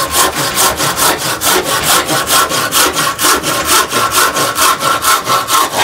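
Silky Sugoi 360 mm pull saw with an unsharpened blade cutting through a log, in fast, even rasping strokes at about five a second. The cut is duller and much less aggressive than a freshly sharpened blade's.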